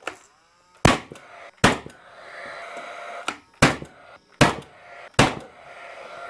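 Paslode nail gun firing nails into pine boards: six or seven sharp shots a little under a second apart, with a steady whir between them.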